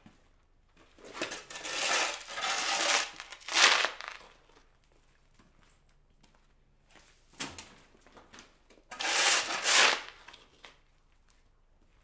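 Shovel scraping dirt off a concrete slab and loading it, in two bouts: a long scrape of about three seconds starting about a second in, and a shorter one about nine seconds in. A single short knock comes between them.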